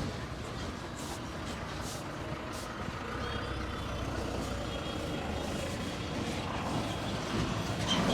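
Street traffic: a heavy vehicle's engine rumbling steadily, growing louder near the end.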